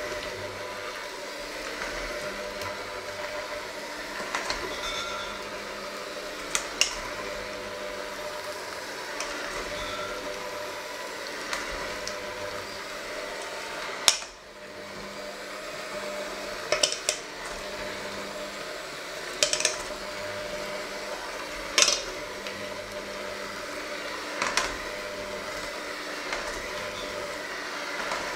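Electric hand mixer running steadily, its beaters churning a thick, crumbly mixture in a stainless steel bowl. The beaters clank against the bowl every few seconds, loudest about halfway through, when the sound briefly drops.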